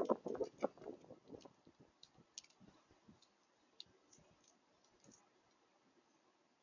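Birds pecking and tapping at a feeder: a run of quick clicking taps that fades about a second in, then scattered light clicks.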